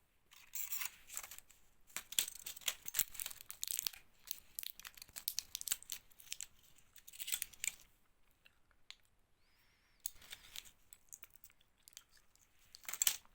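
Medicine packaging being crinkled and torn open by hand: a dense run of crackling, rustling tears for about eight seconds, then a quieter pause and a few more crinkles near the end.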